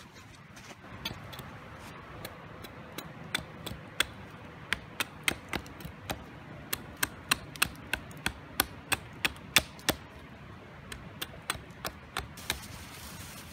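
Hammer driving a metal tent peg into the ground: sharp, ringing strikes, light and spaced at first, then a steady run of about three blows a second, then a few lighter taps near the end.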